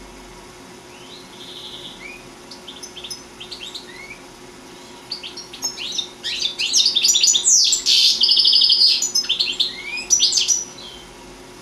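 European goldfinch singing: a few soft, scattered twitters that build about halfway through into a loud, fast run of trills and rapid repeated notes, which stops shortly before the end.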